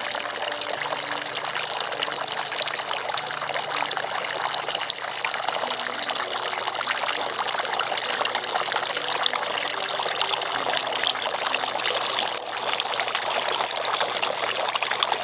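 Tiered bird-bath fountain running steadily, with water bubbling up at the top and splashing, dripping and trickling down into its pools.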